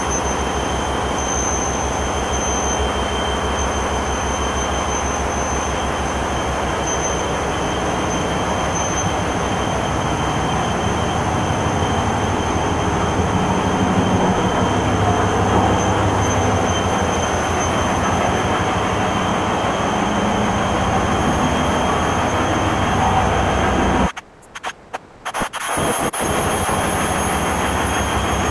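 Large diesel generator sets running in a power-plant engine hall: a loud, steady, dense drone with a fine rapid pulse underneath and a thin steady high whine on top. The sound cuts out briefly about 24 seconds in, then returns.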